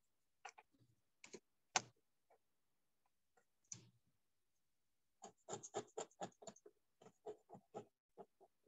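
Faint computer keyboard typing. A few scattered key taps come first, then a quick run of about a dozen keystrokes in the second half.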